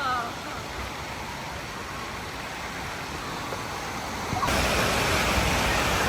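Steady rushing noise like running water, louder from about four and a half seconds in. A falling whistle-like tone trails off right at the start.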